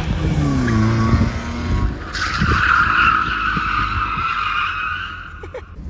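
Lada 112 hatchback drifting on asphalt. Its engine note drops over the first two seconds, then its tyres squeal steadily for nearly four seconds before cutting off near the end.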